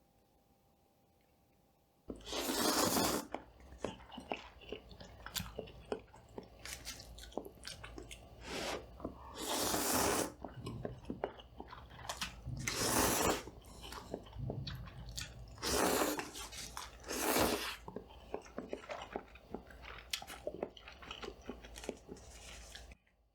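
Close-miked eating: a handful of loud noisy bites or mouthfuls, with many small wet chewing and mouth clicks between them. It starts abruptly about two seconds in and cuts off just before the end.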